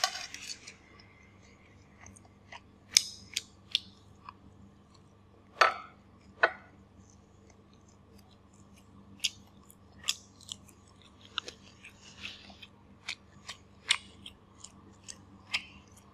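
Close-miked eating sounds: a person chewing food, with scattered sharp, wet mouth clicks and smacks at irregular intervals, a few of them louder.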